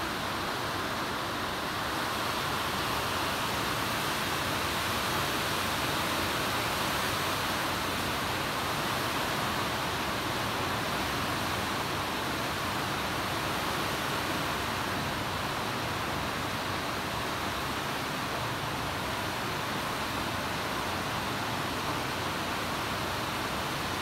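A steady, even hiss of noise that holds unchanged throughout, with no distinct sounds standing out.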